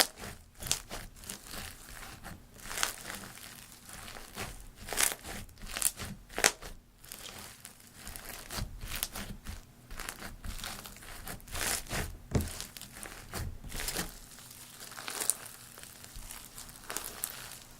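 Hands kneading and stretching slime mixed with foam beads, giving an irregular run of crunchy crackles and pops.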